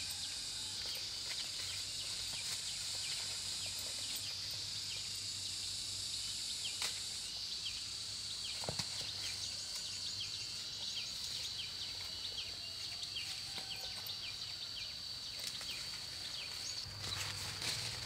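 Insects droning in a steady, high-pitched chorus, with many short chirps and a few sharp clicks over it.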